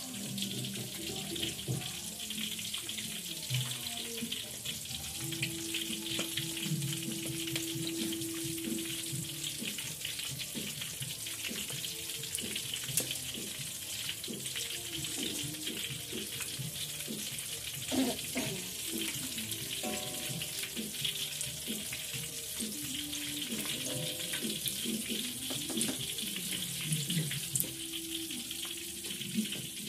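Egg-battered mushrooms deep-frying in hot oil in a wok: a steady, crackling sizzle.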